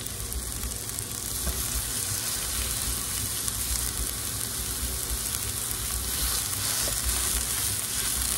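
Raw ground-beef burger patties and sliced onions frying in oil on an electric skillet: a steady sizzle that grows a little louder a couple of seconds in, as more raw meat is pressed down onto the hot surface.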